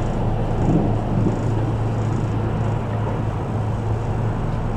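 Running noise of a Kintetsu 12200-series electric train heard inside the passenger car at speed: a steady rumble with a constant low hum, and a couple of brief louder bumps about a second in.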